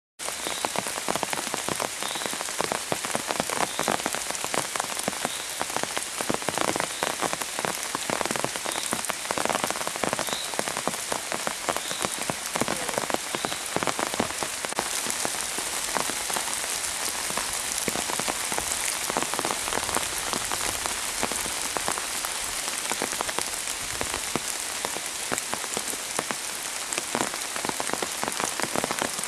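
Heavy, steady rain, with many individual drops pattering close by. A faint short high chirp repeats about once a second through the first half.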